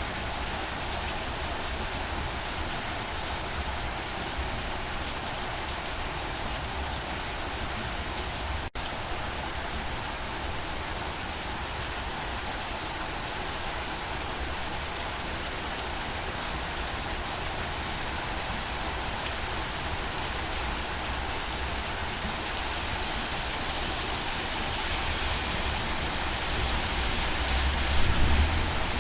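Steady rain falling, an even hiss that drops out for an instant about nine seconds in. A brief low rumble swells near the end.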